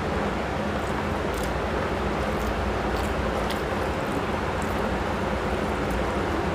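Steady rushing background noise with a low hum, over which come a few faint, soft clicks from fingers squeezing and mixing rice and curry on a plate and from chewing.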